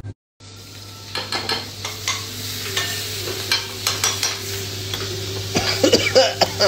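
Chilli paste sizzling in oil in a non-stick wok while a utensil stirs it, scraping the pan in short strokes that come thick and fast near the end.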